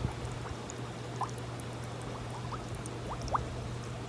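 Hot tub water bubbling and gurgling, with short rising bubble sounds over a steady low hum from the tub's pump.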